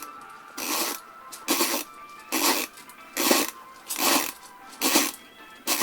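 Winding key of an airsoft Thompson's 1000-round drum magazine being turned, a short ratcheting burst about every second, seven in all, winding the feed spring.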